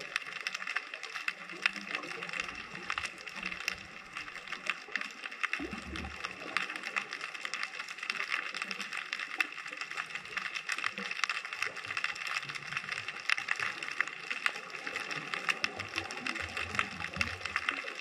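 Underwater ambience recorded through a camera housing: a dense, steady crackle of many small clicks, with a low rumble about six seconds in and again near the end.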